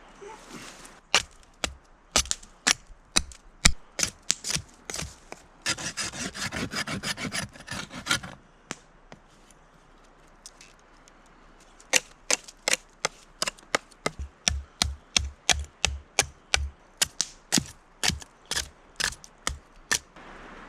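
Sharp chopping strikes of a blade on a wooden stave being debarked, about two a second, broken about six seconds in by a scraping stretch of two or three seconds, then a longer run of quicker strikes.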